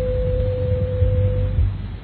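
Fan-made Emergency Alert System alarm tone: a single steady electronic tone held over a constant low droning rumble, the tone stopping about three-quarters of the way through.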